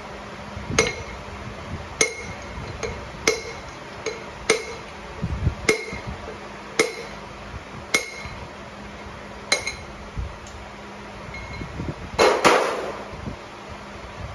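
Sharp metallic tapping on a rod driving a piston out of a Ford 289 small-block V8's cylinder bore, about a strike a second, each with a short ring. About 12 seconds in comes a louder, longer clatter as the piston and connecting rod come free.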